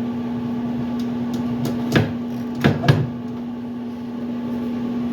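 A few sharp knocks and clicks of parts being handled as a washing-machine transmission is set in place, the loudest three coming close together about two to three seconds in, over a steady background hum.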